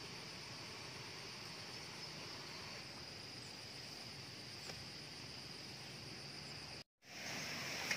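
Steady high-pitched insect drone over a faint outdoor hiss. The sound drops out for a split second about seven seconds in, then returns a little louder.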